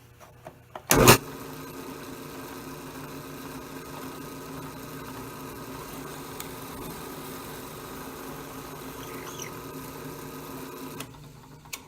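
Drill press: a sharp click about a second in, then the motor runs steadily while it bores a spoke hole in a wooden wheel hub, and it stops near the end.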